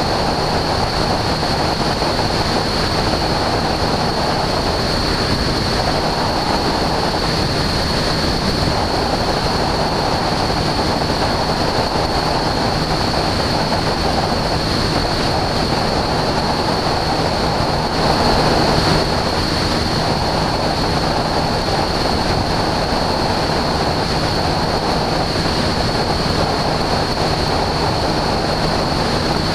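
Husky A-1C light aircraft in cruise: steady engine and propeller drone mixed with wind rushing over the microphone, with a thin high whistle throughout. The noise swells briefly a little past halfway.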